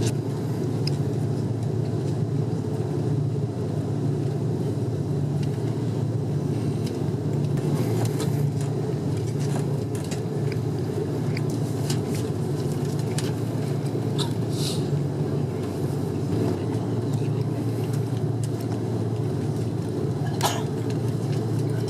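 Airbus A330 cabin noise heard from inside, taxiing with its Rolls-Royce Trent 700 engines at low thrust: a steady low rumble that neither builds nor fades, with a couple of short faint ticks.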